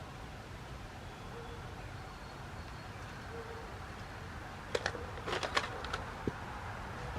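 Faint outdoor background with two short, soft bird coos early on. About two-thirds of the way in comes a cluster of sharp clicks and crackles from handling.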